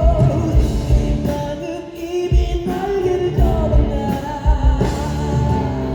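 Live rock music: male vocal group singing loud, sustained lines over a full band with heavy, regular drum hits.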